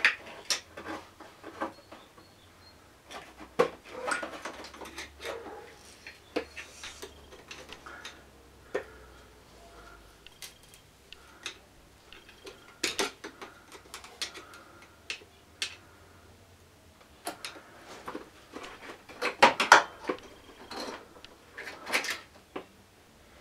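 Irregular clicks, clinks and light knocks of metal and plastic parts being handled and worked loose in a scooter's engine bay, around the carburettor and intake. A denser clatter of clicks comes a few seconds before the end.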